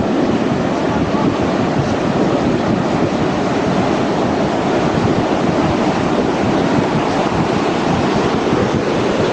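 Rough surf breaking and washing below a pier: a loud, steady rush of churning white water, with wind buffeting the microphone.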